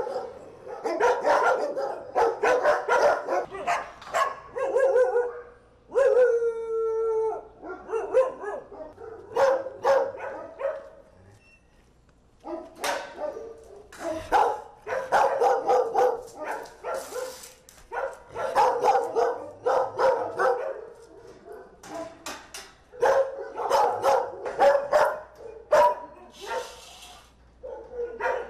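Kennelled dogs barking repeatedly, with many overlapping barks. One dog gives a drawn-out howl about six seconds in, and the barking pauses briefly around the middle.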